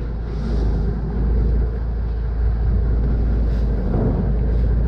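Canal express boat's engine running with a steady, loud low rumble.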